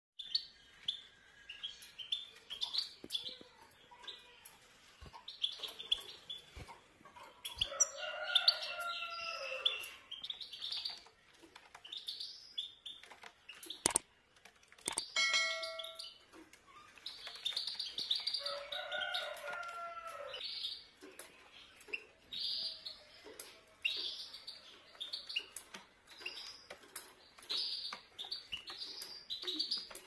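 Caged goldfinches and canaries chirping and twittering: short high chirps repeat throughout, with a lower, fuller warbling call twice, about a third of the way in and again past the middle. Sharp clicks are scattered among the chirps.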